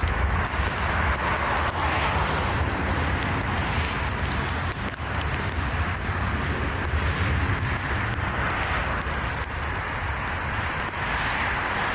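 Strong gusty wind buffeting the microphone: a continuous low rumble with a rushing noise that swells and eases.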